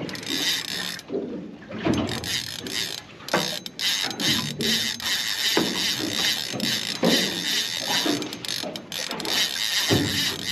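Spinning reel's drag ratcheting steadily as a hooked fish pulls line against the hard-bent rod, with occasional low thumps.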